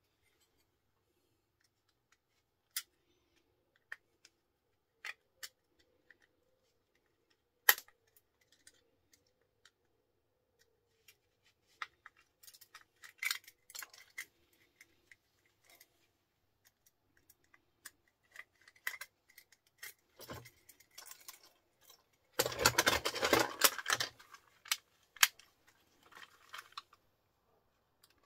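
Scattered clicks and clatter of plastic electrical fittings and small metal parts being handled and taken apart with a screwdriver. The loudest part is a stretch of about two seconds of dense scraping and clatter a little over twenty seconds in.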